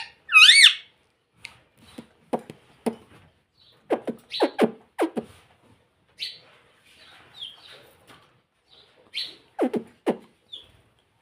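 Indian ring-necked parakeet calling: a loud wavering whistle at the start, then a string of short clicks and quick falling chirps spaced out over the following seconds.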